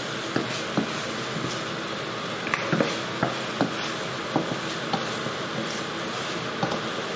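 Thick tomato paste sizzling in a hot frying pan while a wooden spatula stirs it, with irregular knocks and scrapes of the spatula against the pan.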